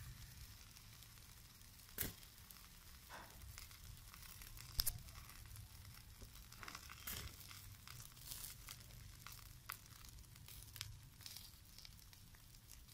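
Chicken wings grilling over charcoal, sizzling faintly with scattered crackles and pops. The two sharpest pops come about two seconds and five seconds in.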